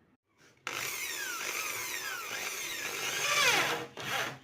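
Electric drill running under load, its whine falling in pitch again and again. It starts suddenly under a second in and drops away near the end.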